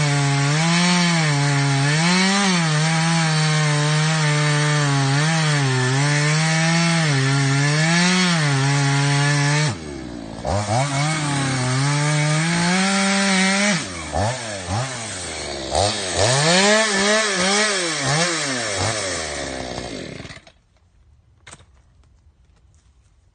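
Proyama chainsaw running at a steady high pitch with small dips, cutting through wood; about ten seconds in the pitch drops and it speeds up and slows down several times, then it stops about twenty seconds in.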